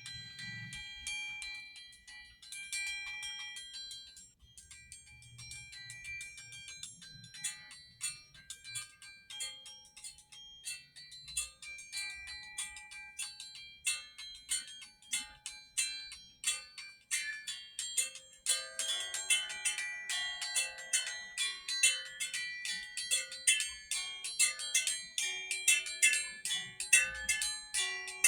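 Bright, bell-like struck notes ringing out one after another, sparse at first and growing steadily denser and busier, with lower notes joining about two-thirds of the way through.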